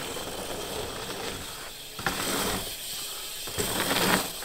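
Bicycle riding over dirt jumps: tyres rolling on dirt and the freewheel hub ticking as it coasts, with louder rushes about two and four seconds in.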